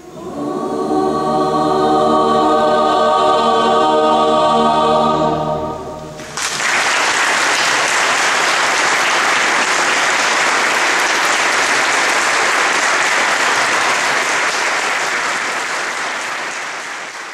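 A mixed choir with organ holds a final chord for about six seconds, then it fades away. Audience applause breaks out suddenly, goes on steadily, and tapers off near the end.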